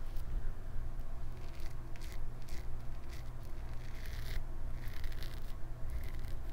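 Double-edge safety razor, a Gillette Travel Tech with a Personna Lab Blue blade on its second use, scraping through lathered stubble on the neck in a run of short strokes. A steady low hum runs underneath.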